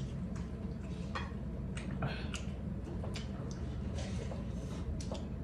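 Eating sounds: irregular small clicks and wet smacks of chewing over a steady low hum.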